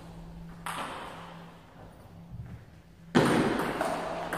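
Table tennis ball hits: a single sharp tap about half a second in, then after a pause a louder crack near the end as play starts. A faint steady hum runs underneath.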